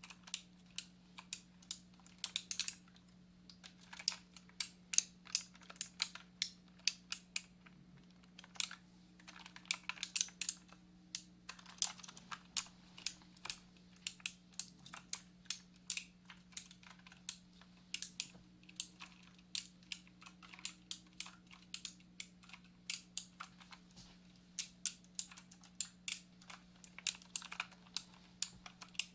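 Computer keyboard typing: irregular runs of sharp key clicks with brief pauses, over a faint steady low hum.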